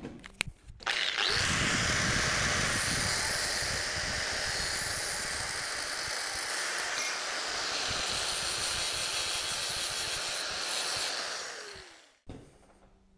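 Angle grinder with a cutoff disc cutting through a clamped steel bar. The grinder starts about a second in, cuts steadily for about ten seconds, then winds down near the end.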